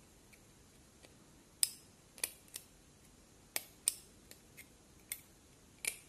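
Small sharp clicks of steel tweezers picking at and lifting the spring contact pins of a keypad phone's SIM card slot, about seven ticks at uneven intervals.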